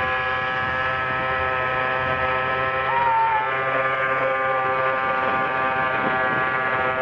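Petrol weed-wacker engine of a 48-inch RC boat running steadily at speed, an even high buzz that holds its pitch as the boat planes across the water.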